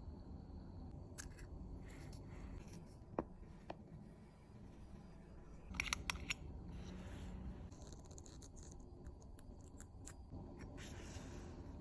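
Small, sharp clicks and light scrapes of watchmaker's tools on a Cartier wristwatch's metal parts, with a quick run of clicks about six seconds in, over a low hum.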